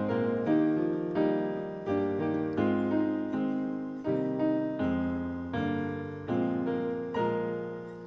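Piano playing a slow hymn introduction, struck chords about every three-quarters of a second, each dying away; the last chord fades out near the end.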